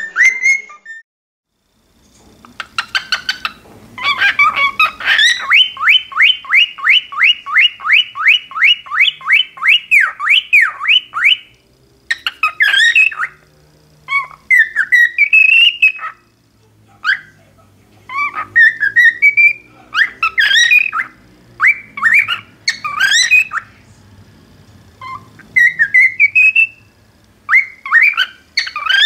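Cockatiel singing. After a moment of quiet comes a quick chatter, then a fast, even run of repeated whistled notes, about three a second, for several seconds. It then breaks into separate rising whistles and chirps with short pauses between them.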